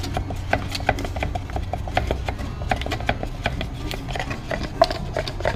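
Wooden stir stick knocking and scraping around the inside of a plastic tub while two-part epoxy resin and hardener are mixed by hand: a quick, irregular clatter of small taps.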